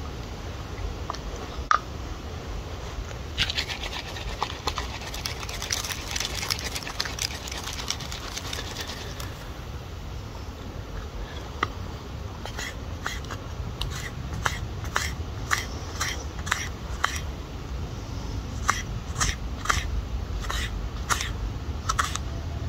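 Small stainless steel Opinel knife slicing vegetables on a chopping board: a regular run of sharp taps, about two a second with a short pause, in the second half, after a stretch of rustling.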